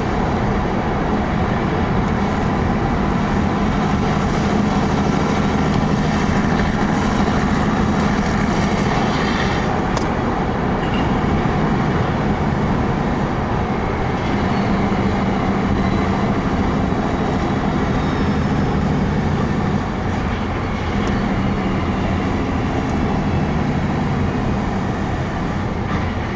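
Heavy truck's diesel engine running steadily under way, mixed with road noise.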